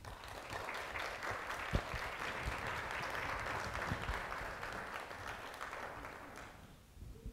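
Audience applauding at the end of a talk, starting at once, holding steady and dying away in the last second or so, with a low thump about two seconds in.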